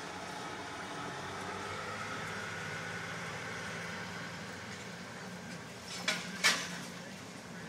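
Truck engine running, heard from inside the cab while driving, with a faint whine that rises slightly in pitch. Two sharp knocks about six seconds in.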